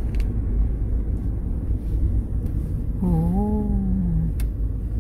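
Steady low road and engine rumble inside a moving camper van. About three seconds in, a short hum lasting about a second dips, then rises and falls.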